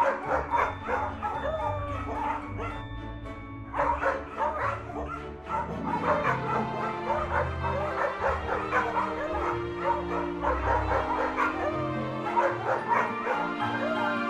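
Dog barking repeatedly over background music.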